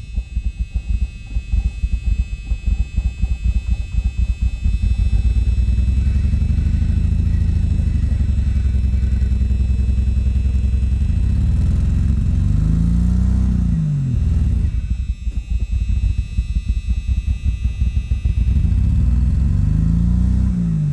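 A car engine running rough and labouring under load in deep snow, its revs rising and falling twice in the second half. The engine is misfiring, not running on all six cylinders, and the owner suspects a plugged catalytic converter.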